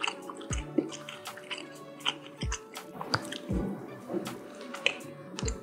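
Close-miked chewing and mouth sounds of someone eating a piece of sauce-glazed fried chicken, with sharp little clicks of a fork, over soft background music.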